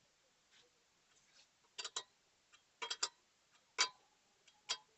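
A steel 19 mm wheel wrench clicking and clinking on the wheel nuts in irregular, sharp metallic clicks, some in quick pairs, as the spare wheel's nuts are snugged down.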